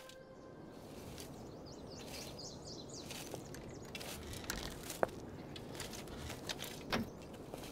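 Outdoor ambience with birds chirping, mostly in the first half, and a few short sharp clicks and knocks. The loudest click comes about five seconds in and a duller knock about two seconds later.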